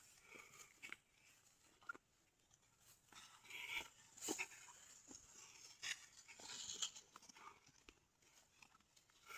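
Near silence, with faint scattered crunches and rustles, a little louder around four seconds in and again near six to seven seconds.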